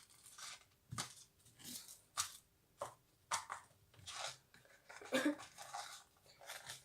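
Packaging crinkling and rustling in a string of short, irregular bursts as it is handled and pulled open.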